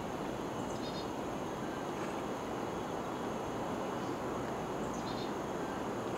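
A bird chirping twice, a short high call about a second in and again near five seconds, over a steady outdoor rushing noise.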